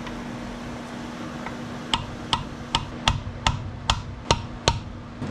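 A hammer striking a chisel eight times in a steady rhythm, a little over two blows a second, starting about two seconds in. The chisel is driving the hot-side turbine housing loose from a Ford 6.0 diesel turbocharger.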